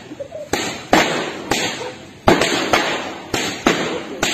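Hand-swung whips cracking hard against a paved lane, several people at once, about eight loud, irregularly spaced bangs like firecrackers, each trailing off with a short echo.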